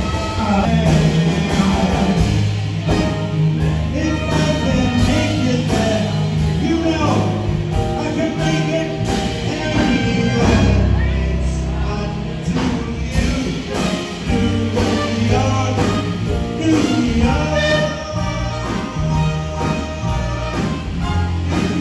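Background music: a song with a singing voice over a steady bass.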